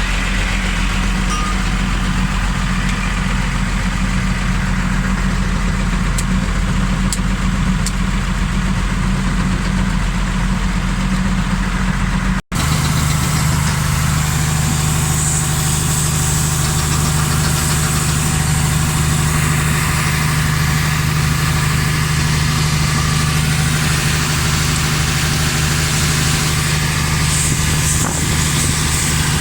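IVECO truck's diesel engine idling steadily, with a brief break about twelve seconds in where the recording cuts and resumes at a slightly different pitch.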